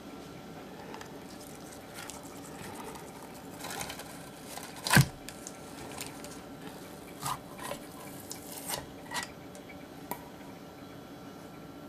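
A glass bowl set down into a stainless steel bowl, with one sharp clink about five seconds in, followed by a few lighter clicks and taps as the bowls are handled.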